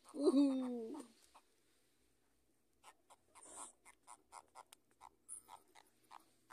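A brief drawn-out vocal sound in the first second, then, from about three seconds in, frogs calling at night: a regular run of short croaks, about three a second.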